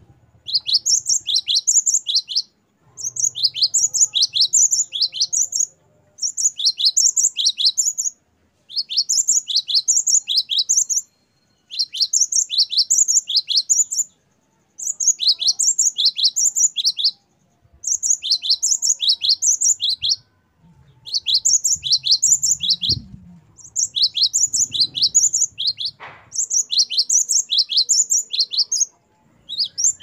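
Great tit singing: phrase after phrase of rapid, high, down-slurred notes repeated in quick series. Each phrase lasts about two seconds, with short pauses between them, about ten phrases in all.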